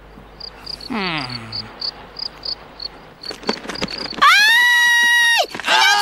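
Cartoon night ambience of crickets chirping in an even pulse, about four chirps a second, with a voice sliding down in pitch about a second in. A few sharp cracks come a little after three seconds, like wood splintering as a claw breaks through a tree trunk. Then a loud, high cry is held at one pitch for about a second.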